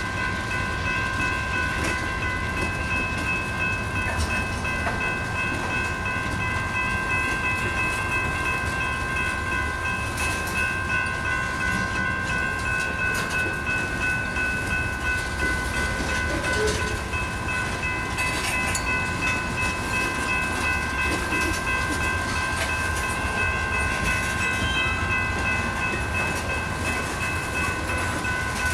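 Freight cars (tank cars and covered hoppers) rolling past on steel wheels: a continuous low rumble with scattered wheel clicks over the rail joints. A steady high-pitched ringing of several pitches runs underneath the whole time.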